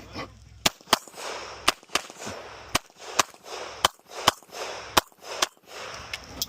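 Canik TTI 9mm pistol firing a rapid string of about ten shots, mostly in quick pairs, each crack trailing off in echo.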